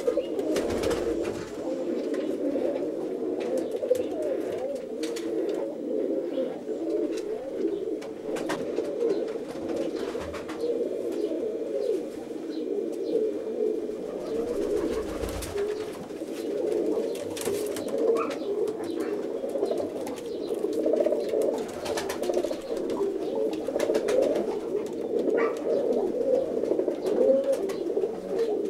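Domestic roller pigeons of the Bosnian prevrtač breed cooing in the loft, many overlapping coos without a break, with scattered light clicks.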